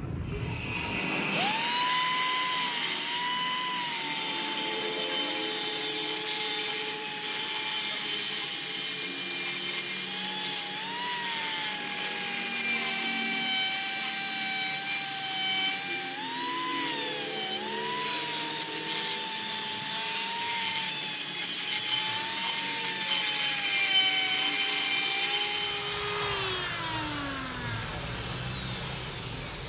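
Electric power tool running on metal with a steady whine whose pitch dips and recovers several times, as under changing load; near the end the whine stops and a lower tone falls away.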